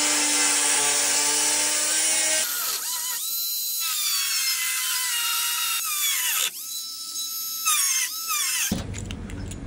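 Cordless power tools working into a van's steel door: a drill running steadily, then a small high-speed grinder throwing sparks, its high whine jumping up, sagging in pitch as it cuts the metal, spinning up again and cutting off sharply near the end.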